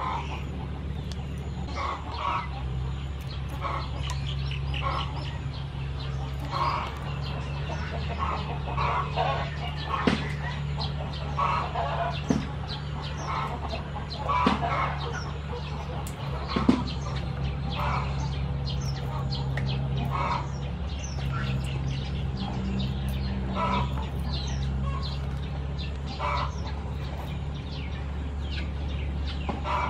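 Chickens clucking repeatedly in short calls, over a steady low hum, with a few sharp snips of scissors cutting razor clam tails.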